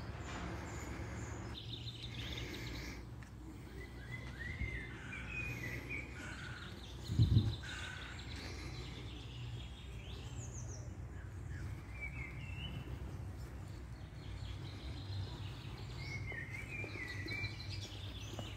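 Small birds chirping and warbling in short phrases over a steady low outdoor rumble, with one brief low thump about seven seconds in.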